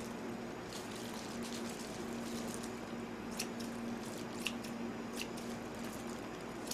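Kitchen scissors snipping raw pork neck into a pot of kimchi stew: a few short sharp snips over a soft wet squishing, with a steady low hum underneath.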